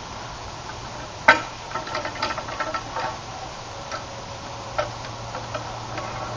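A wooden loading staff worked in the muzzle of a small bronze-age-style muzzle-loading cannon (demi-falconet), knocking and tapping against the barrel: one sharp knock about a second in, then a run of lighter clicks and taps, and a few more scattered ones.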